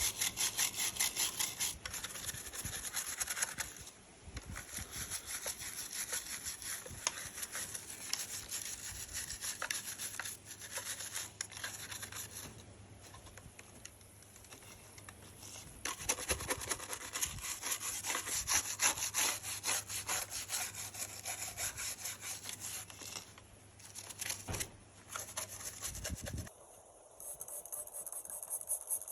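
Rapid back-and-forth scrubbing strokes on the plastic of a NERF toy blaster being cleaned, in long runs with a few short pauses, stopping near the end.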